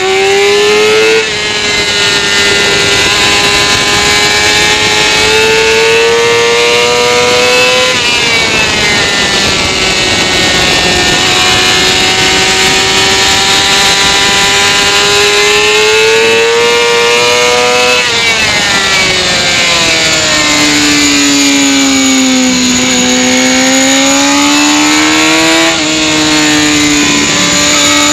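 Sport motorcycle engine running hard on track, heard from an onboard camera over steady wind rush. Its pitch climbs through each gear and drops sharply at upshifts near the start and about a third of the way through. Past the middle it falls away through a long slow-down into a corner, then climbs again, with one more shift near the end.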